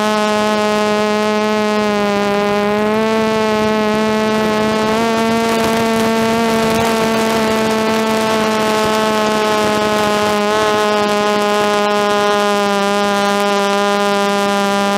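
DJI F330 quadcopter's brushless motors and propellers whining steadily in flight, heard from the onboard camera, the pitch shifting slightly a few times as the throttle changes.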